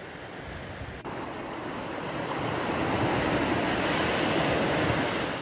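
Sea surf washing in over a shallow sand beach, a steady rush of water that swells from about a second in and is loudest near the end.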